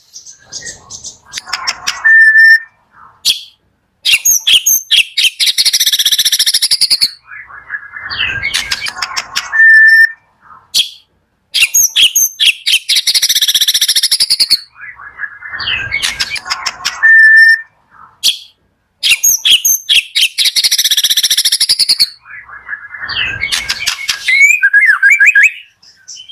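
Murai songbird singing: a loud, varied song of clear whistles, buzzy rattles and quick chattering phrases, broken by short abrupt gaps. The same sequence comes round about every seven to eight seconds, a looped lure recording played to draw a reluctant caged murai into song.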